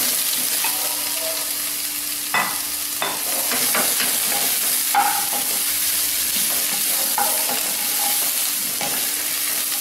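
Sliced mushrooms, onions and curry leaves sizzling in hot oil in a pan while a wooden spatula stirs them, with a few scrapes and knocks of the spatula against the pan.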